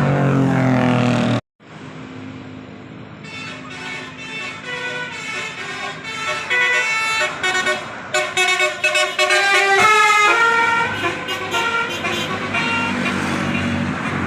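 Bus "telolet" musical air horn (Basuri type) playing a tune: a string of pitched horn notes stepping up and down. It grows louder after a brief break about a second and a half in.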